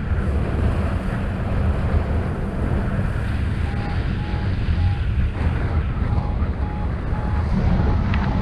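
Airflow of paraglider flight buffeting the microphone as a steady heavy wind rush. From about halfway through, a variometer gives short beeps at one pitch, about two a second: its climb tone, the wing rising in lift.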